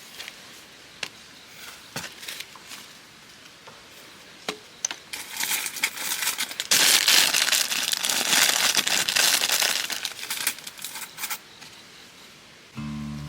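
Crinkling and crumpling of something being handled: scattered clicks at first, then a dense, louder rustle from about five seconds in that dies away after several seconds. Music starts just at the end.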